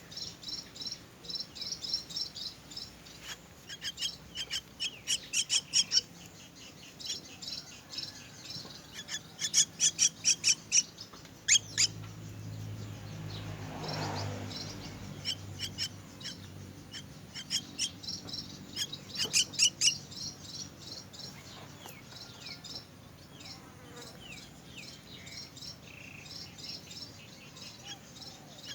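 Myna nestlings giving begging calls: rapid runs of short, high chirps in repeated bursts. A low rumble swells and fades about halfway through.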